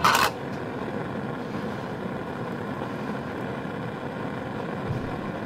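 Steady rushing hiss of a lit Bunsen burner's flame, with a short plastic clack at the very start as a petri dish is handled.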